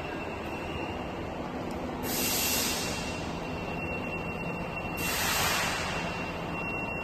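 Workshop machinery running steadily, with a faint high whine. Two short bursts of hiss come about two and five seconds in.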